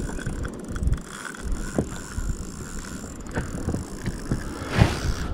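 Water slapping against a small inflatable boat, with wind buffeting the microphone and irregular low knocks; a louder rush of noise near the end.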